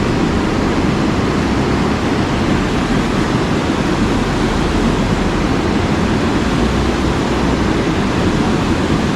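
Tall waterfall pouring into a large plunge pool: a steady rush of falling water with no breaks, deepest and strongest in its low range.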